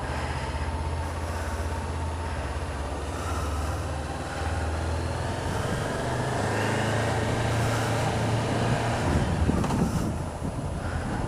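Motorcycle engine running at low revs, its pitch stepping up and down a few times, with a louder rush of noise near the end.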